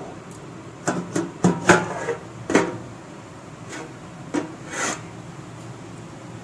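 Stainless-steel lid of a biryani pot being handled and lifted off after dum cooking: a quick series of metal clinks and scrapes in the first few seconds, then two more around four to five seconds in.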